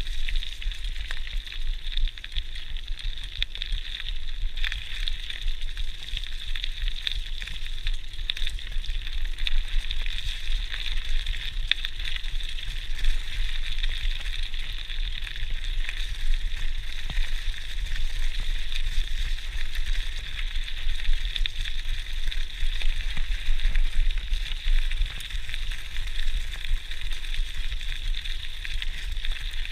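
GT Outpost Trail mountain bike rolling over a gravel and leaf-covered woodland track: steady tyre hiss with constant small crackles from the gravel, over a low rumble.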